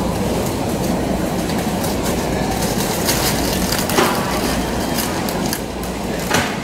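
Steady background hum and noise of a supermarket, with two brief crackles of a snack bag being handled, about four seconds in and again just after six seconds.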